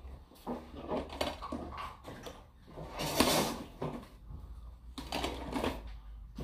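Irregular knocking, clicking and rustling of clear plastic containers and lids being handled on a counter while someone tries to get a lid to snap on, with a louder rush of noise about three seconds in.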